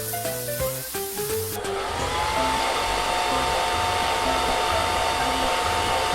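A hair dryer switching on about a second and a half in, its whine rising as it spins up, then blowing steadily over background music.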